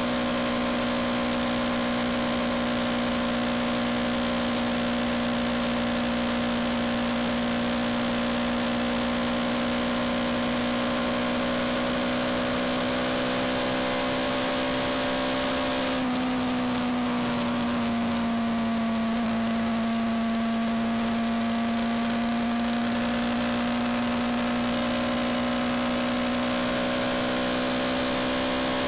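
Yamaha MT-125's single-cylinder four-stroke engine running at a steady cruise under wind rush. The engine note creeps up slowly, dips about halfway through, then holds steady.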